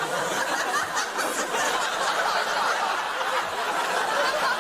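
Studio audience laughing, a dense, steady mass of laughter.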